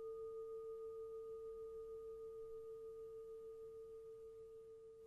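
A single ringing tone dying away slowly, with a faint pulsing wobble in loudness.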